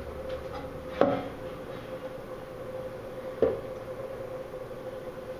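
Two sharp knocks, about a second in and again about three and a half seconds in, over a steady hum. These are handling sounds at a flux-core welder between welds; the arc is not running.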